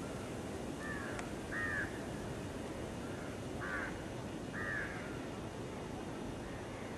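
Birds calling outdoors: several short, harsh calls in the first five seconds over a steady background hiss.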